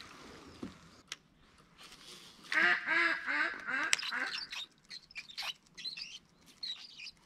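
A duck quacking: a quick run of several short quacks about two and a half seconds in, followed by a few fainter, scattered short calls.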